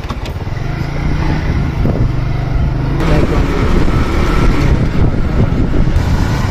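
Motorcycle engine running while being ridden, a steady low hum for the first few seconds and then rougher and fuller.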